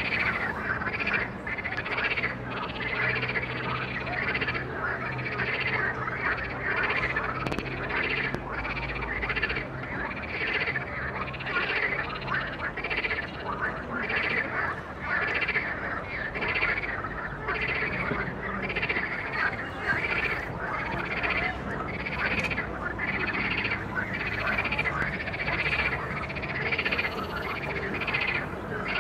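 A dense chorus of many frogs croaking at once from the weedy shallows of a river, pulsing in waves about once or twice a second.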